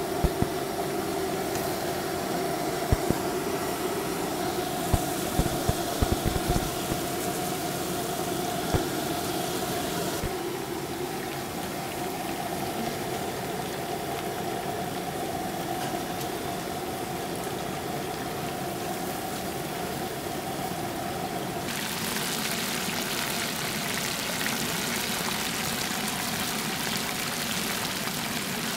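Chicken deep-frying in a large cast-iron pot of oil: a steady sizzle, with a steady low hum under it that stops about two-thirds of the way through. There are a few sharp clicks in the first nine seconds.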